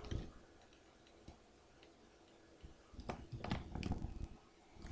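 Faint scattered clicks and rustling, with a denser run of small knocks about three to four seconds in, over a faint steady hum.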